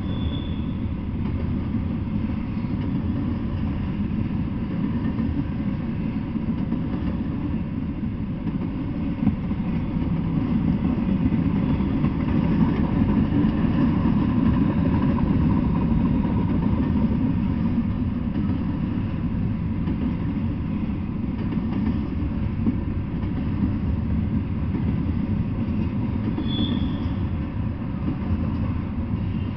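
Double-stack intermodal freight train rolling past, a steady low rumble of the well cars' wheels on the rails, swelling a little louder midway.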